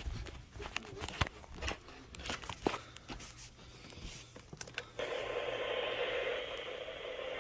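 Static from a weather-radio receiver: scattered crackles and clicks, then about five seconds in a steady hiss comes on, limited to the radio's voice range. It is the noise of a patchy reception that the uploader calls signal trouble.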